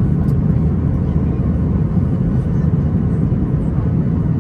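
Steady, loud low rumble of a Boeing 737-800's CFM56 jet engines and airflow heard from inside the passenger cabin.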